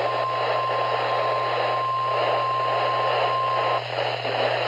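NOAA Weather Radio warning alarm tone, a single steady 1050 Hz pitch received through heavy radio static and a low hum. It signals that a warning broadcast is about to follow. The tone cuts off abruptly about four seconds in, leaving the static hiss.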